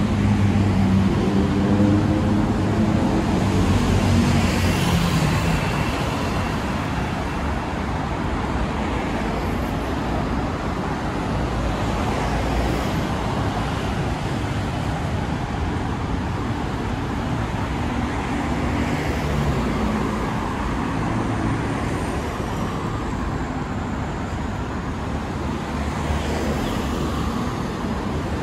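Busy city road traffic: engines running and tyre noise. One heavy vehicle's engine hum is loudest over the first few seconds, then fades away.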